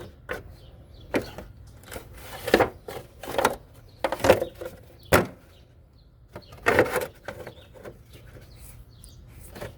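Small plastic parts of a new windshield washer pump being handled: a run of irregular clicks, knocks and short rustles.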